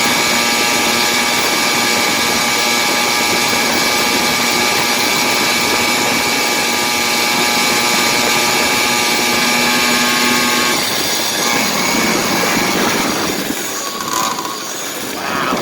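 Two-stroke Stihl MS460 chainsaw engine on a motorized bicycle running steadily at cruising speed under throttle. About eleven seconds in the steady engine note drops out and the sound turns quieter and rougher, as when the throttle is let off.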